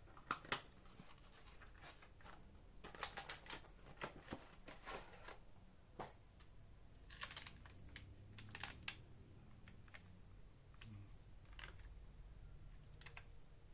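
Handling of small electronics kit parts: scattered light clicks, taps and scratching, in clusters a few seconds in and again about halfway, then sparser.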